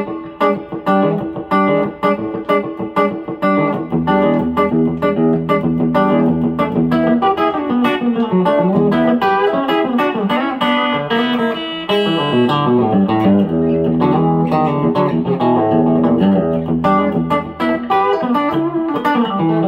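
Fender Telecaster electric guitar, a Player Series Made in Mexico model, played clean through a Fuchs tube amp head with reverb: chicken-pickin' country licks, short snapping clucking notes at first, then fuller ringing notes and slides from about four seconds in.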